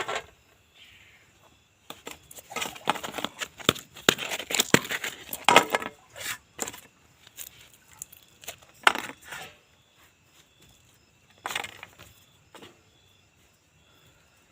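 Irregular clinks, knocks and rustling from objects being handled, thickest in the first half, with single knocks later. Faint insect chirps repeat at an even pace through the second half.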